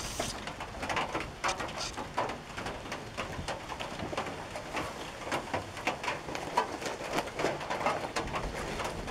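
Rain falling on a tin roof: an irregular patter of drops striking the metal, many each second.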